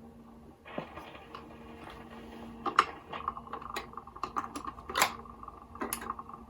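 Automatic record changer of a vintage Trav-ler record player cycling after the record ends, now working after a binding tone-arm part was freed. The turntable motor gives a steady hum under a run of mechanical clicks and knocks, the loudest about three and five seconds in.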